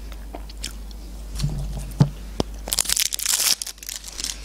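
Plastic film wrapper of an imitation crab stick crinkling and tearing as it is peeled off, loudest about three seconds in. Before it there is quiet chewing and a few mouth clicks.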